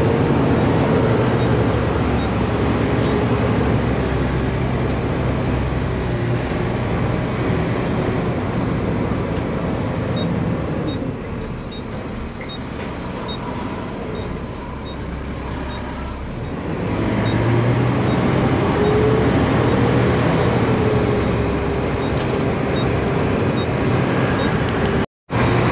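Mack garbage truck's engine running on the move, heard from inside the cab: a steady drone with road noise that eases off about eleven seconds in and builds again about seventeen seconds in, with a short rise in pitch as the truck speeds up.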